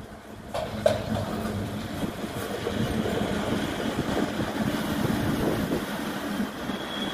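Museum train led by electric locomotive E 41 001 rolling slowly past, its wheels clicking over the rail joints and points about half a second and a second in, then a steady rumble and rattle of wheels and coaches. A thin, high wheel squeal begins at the very end.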